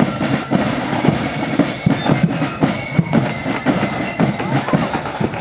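Marching flute band's bass drum and snare drums beating a steady march rhythm.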